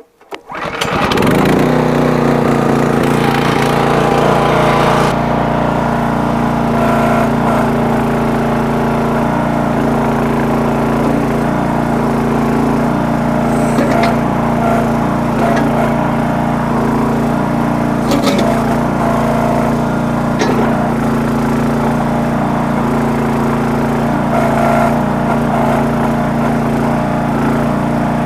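Small gasoline engine of a towable backhoe starting up and settling into a steady run, its note shifting a few seconds in, with a few short knocks later on.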